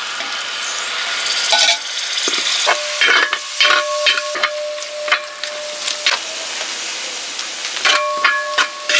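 Chopped tomatoes sizzling in hot coconut oil in a wide metal pan, a steady frying hiss, while a perforated metal spoon stirs them, scraping against the pan with repeated strokes from about three seconds in and making the metal ring.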